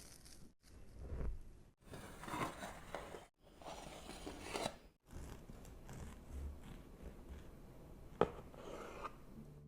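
Faint handling noises of food preparation: rustling, scraping and crunching in short segments that cut off abruptly, with one sharp click about eight seconds in.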